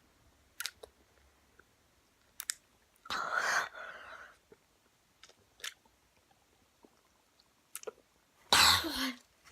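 Mouth sounds of someone eating Warheads extreme sour candy: a few sharp clicks and smacks spread through the quiet, and two louder breathy bursts, one about three seconds in and a stronger one near the end, as the sourness hits.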